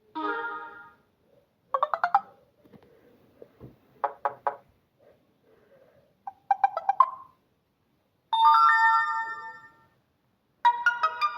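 Samsung Galaxy Pocket phone playing its built-in ringtones one after another: six short electronic chimes and plucked-note jingles, each lasting about half a second to a second and a half, with brief silences between them.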